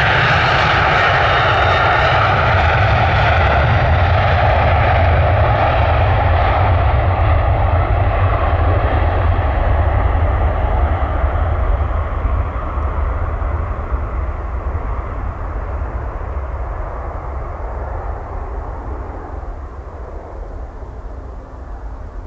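Boeing 737-800's two CFM56-7B turbofan engines at take-off thrust as the airliner rolls past on its take-off run, then lifts off and climbs away. It is loud at first with a thin whine over the jet noise, then the sound slowly fades and loses its high end.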